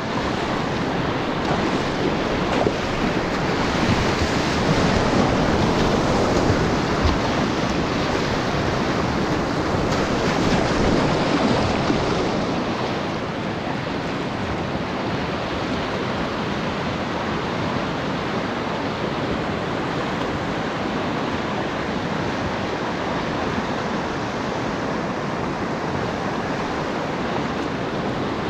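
Whitewater rapid rushing steadily around a kayak sitting in the current, a little louder for the first dozen seconds and then even.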